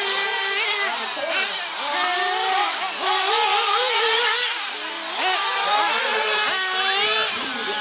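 Several 1/8-scale nitro RC buggy engines screaming at high revs, their pitches rising and falling together as the buggies accelerate and brake around the track.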